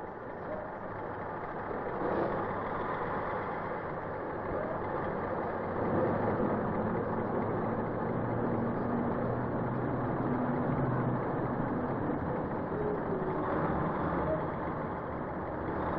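Heavy road tractor's engine running steadily as it hauls a large transformer road transporter, growing louder about two seconds in and again about six seconds in.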